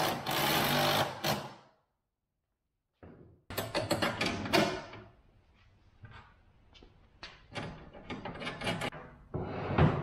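Cordless impact driver running for about a second and a half while driving a bolt into a sprayer's steel frame, then cutting off abruptly. After a gap come a few more short bursts and a scatter of clicks and knocks from tools and metal parts being handled.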